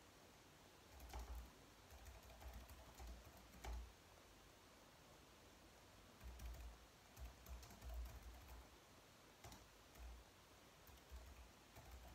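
Faint typing on a slim low-profile computer keyboard: soft key clicks in runs of a second or two, broken by short pauses.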